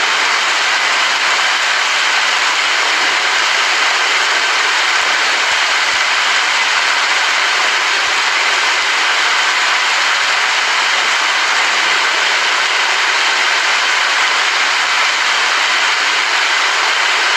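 Rain falling steadily, a dense, even hiss with no breaks or thunderclaps.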